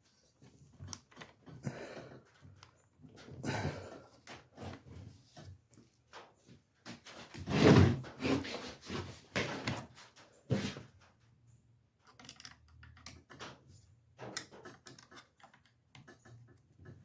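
Irregular clicks, knocks and rattles of chainsaw parts being handled and fitted back together during reassembly, with the loudest clatter a little past the middle.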